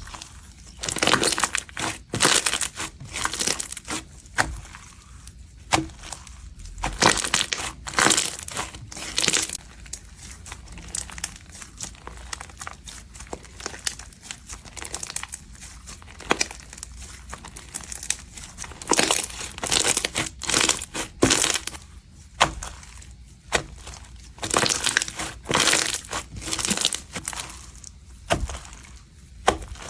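Glossy, crunchy slime being mixed and squeezed, giving crackling, crunching sounds in irregular bursts of a second or two, with quieter stretches between.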